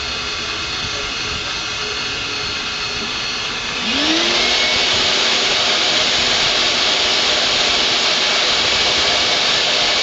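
CNC-converted Grizzly G0619 milling machine running a pocketing program in 6061 aluminum with a carbide end mill. About four seconds in, a brief rising whine is heard and a louder steady hiss sets in and holds.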